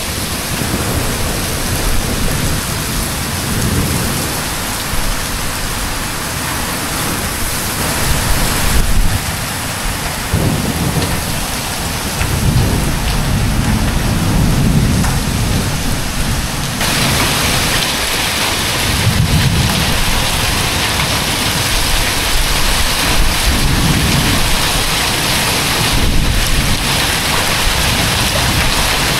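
Heavy thunderstorm downpour: dense rain pouring onto pavement and parked vehicles, with low rolling thunder swelling several times. The rain grows heavier a little past the middle.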